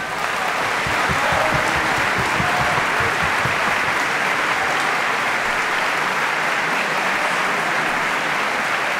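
Large audience applauding, building over the first second and then holding steady.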